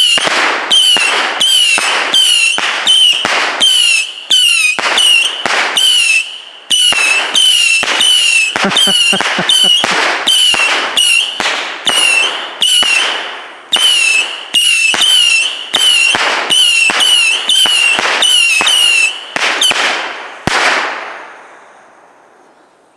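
Consumer firework cake firing a rapid string of whistling shots, about two a second, each a sharp pop followed by a warbling high whistle. The barrage stops about twenty seconds in and dies away.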